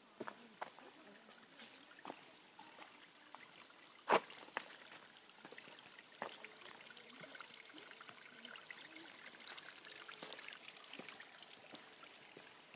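Faint trickle of water running from a small seep in the trail bank, a little stronger in the second half. Scattered footsteps on the dirt trail, one louder step about four seconds in.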